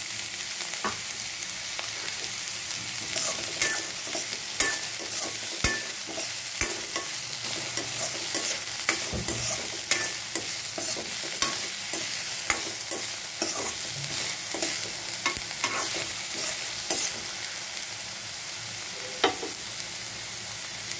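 Chopped onion and green capsicum sizzling in hot oil in a metal kadai, with a spatula scraping and knocking against the pan as they are stirred. The knocks come often through most of the time and thin out near the end, with one sharp knock shortly before the end.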